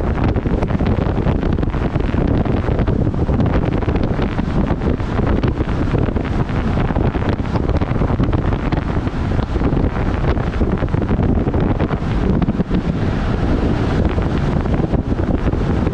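Steady wind buffeting on the microphone of a vehicle travelling at highway speed, a dense low rumble with road noise underneath.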